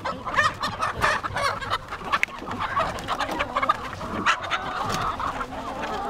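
A flock of laying hens, Black Stars among them, clucking, with many short calls overlapping.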